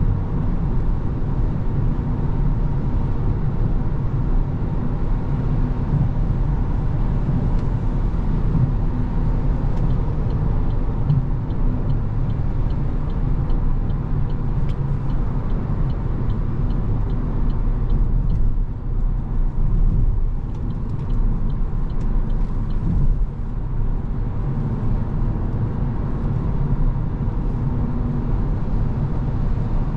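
Interior cabin noise of a 2023 Opel Corsa-e electric hatchback cruising at motorway speed, around 105–124 km/h: a steady low road and tyre rumble with wind noise and no combustion engine note. Faint, evenly spaced ticking comes and goes for a few seconds at a time.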